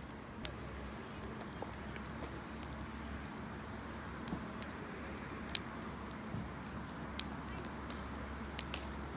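Wood campfire burning: a steady low rush broken by a handful of sharp crackling pops, the loudest about five and a half seconds in.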